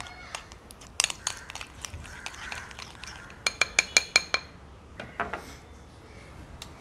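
Metal spoon stirring thick maida (flour) paste in a small glass bowl, clicking and scraping against the glass. A little past halfway comes a quick run of about seven ringing clinks of spoon on glass.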